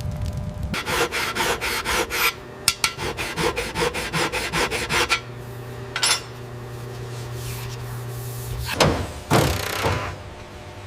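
Quick, even rasping strokes, about four or five a second, like filing or scraping, then a steady low hum with two or three loud whooshing sweeps near the end.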